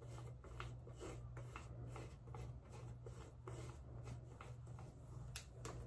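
Faint scratchy rubbing of a deodorant stick being swiped against the skin under the arm, many short strokes over a steady low hum.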